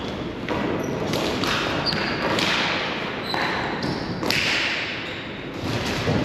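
Ball hockey play: sticks and ball knocking and thudding, with a few short high squeaks.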